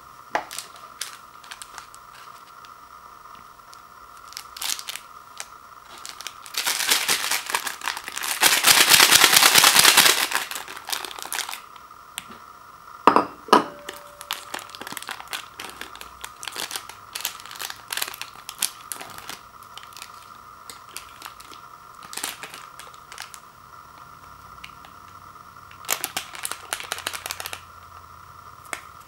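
Instant ramen seasoning packets crinkling and being torn open by hand. There is a long, loud stretch of crinkling about a quarter of the way in, a few sharp snaps shortly after, and another shorter spell of crinkling near the end.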